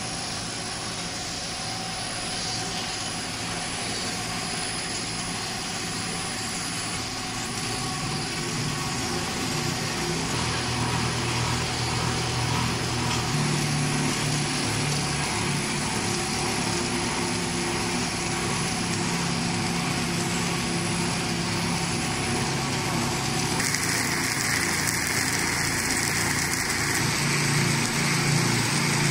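Food extrusion snack production line running: steady machine noise with a constant hum, its tone turning a little brighter about three-quarters of the way through.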